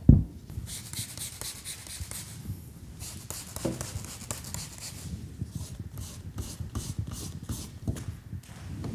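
Hand wet-sanding of a fiberglass gelcoat patch with 400-grit paper: fast back-and-forth rubbing strokes, mixed with squirts from a spray bottle of soapy water. A single thump at the start as the panel is set down on the wooden bench.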